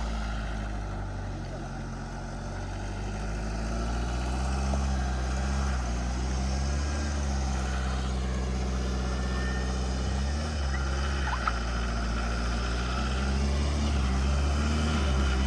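Vehicle engine running steadily at low revs, a constant low hum with small changes in pitch about ten seconds in.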